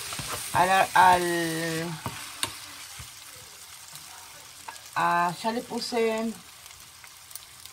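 Fried rice with egg and vegetables sizzling in a frying pan as it is stirred and turned with a plastic spatula, with a few light taps of the spatula. A voice sounds briefly twice over the sizzle.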